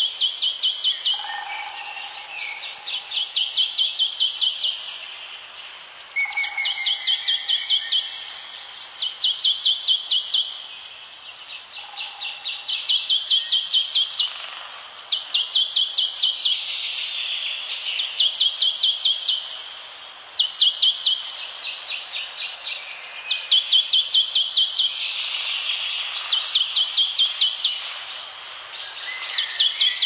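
Forest wildlife calling: rapid high-pitched chirping trills, each about a second long, repeat every two to three seconds. A few short, lower whistled notes come in between them.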